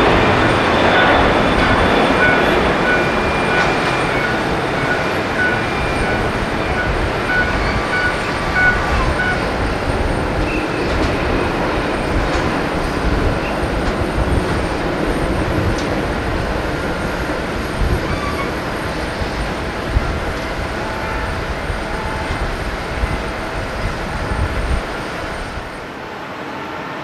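Boeing 747-400's four turbofan engines running at taxi power: a steady rumble with high whining tones, slowly fading as the jet moves away. The level drops suddenly near the end.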